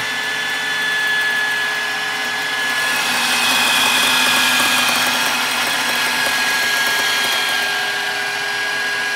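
Electric power-tool motor running as the winch of a homemade roof crane, winding its cable. A steady whine grows louder and brighter about three seconds in, then eases back at around seven and a half seconds.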